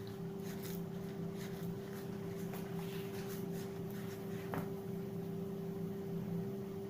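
A wooden spatula scraping and stirring through flour and melted butter in a bowl: faint repeated scratches, one sharper tick about four and a half seconds in, over a steady low hum.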